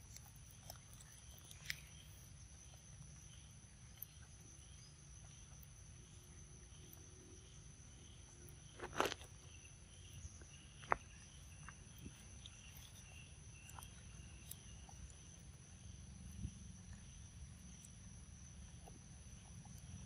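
Faint wet clicks and smacks from a macaque biting and chewing a ripe mango, the loudest about nine seconds in and a sharp click about two seconds later. Behind them, steady high insect trilling and a low rumble.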